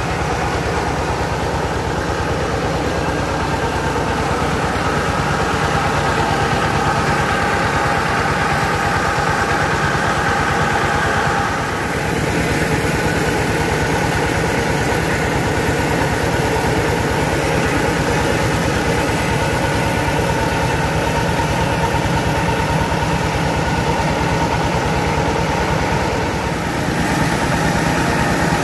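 Engine-driven mobile rice mill running steadily under load, the engine and the hulling and polishing machinery droning together as grain streams through. The level dips briefly twice, about midway and near the end.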